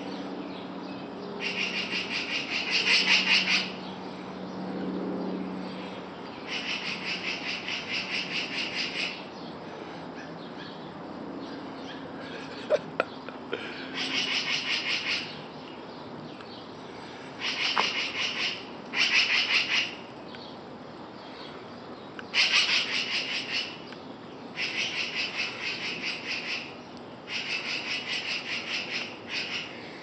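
Birds giving harsh, rapid rattling scold calls in bursts of one to two seconds, about nine times with irregular gaps. These are alarm or mobbing calls at a cat near their nest.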